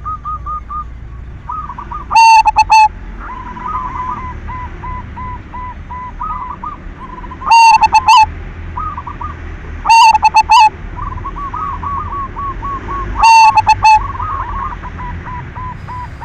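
Zebra dove (perkutut) of the silver colour variety cooing: four loud, short coo phrases a few seconds apart, with a fainter run of quick, repeated coo notes between them.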